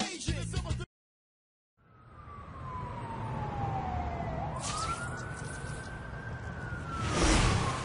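Background music cuts off about a second in; after a short gap of silence a single siren wails, its pitch falling slowly, then rising and holding before sinking again, over a steady rumbling noise. A loud noisy rush comes near the end.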